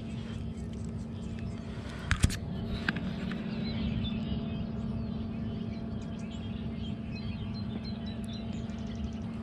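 Outdoor ambience of faint, scattered bird chirps over a steady low rumble and a constant low hum, with one sharp knock about two seconds in and a lighter click just after.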